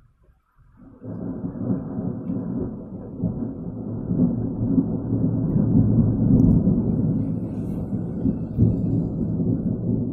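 Thunder rolling: a long, low rumble that starts about a second in and builds, swelling for several seconds.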